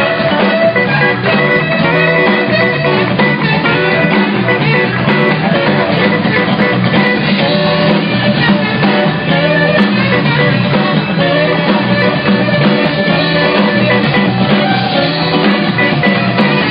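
Live rock band playing loudly: electric guitar and drums with a horn section, heard through a phone's microphone.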